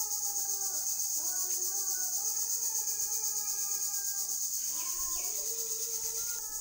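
Steady, high-pitched, finely pulsing chorus of insects, with drawn-out melodic tones, like a voice holding notes, fainter underneath.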